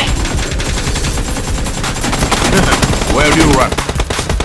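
Rapid automatic gunfire, many shots a second in quick succession with no letup.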